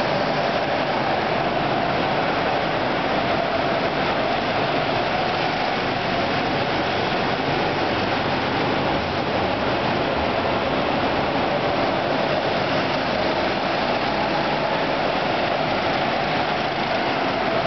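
Several hire go-kart engines running together at racing speed inside a kart hall, a steady, dense drone with no letup.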